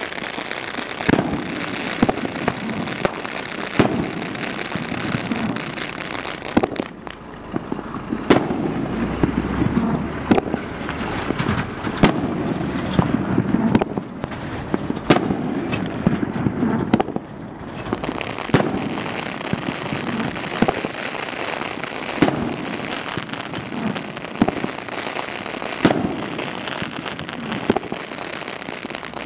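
A DM554 Braggin Rights 500g fireworks cake firing 2-inch "Mega-Burst" shells: sharp booms of launches and bursts every second or two over a steady noisy background.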